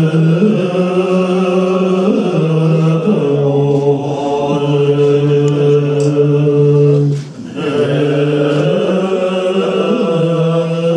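Tibetan Buddhist monks chanting in unison on one steady held pitch, with a few brief bends in the line. The chant breaks off for a short breath about seven seconds in, then resumes.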